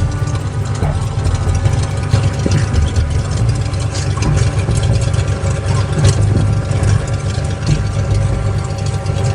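Small agricultural aircraft's engine running steadily at idle on the ground during refilling: a constant low rumble with a steady whine above it.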